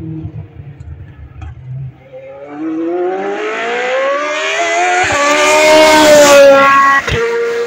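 GP2 single-seater's V8 race engine accelerating toward and past the fence, its pitch climbing steadily with a brief break about five seconds in, loudest about six seconds in as it goes by, then the pitch bending down as it moves away.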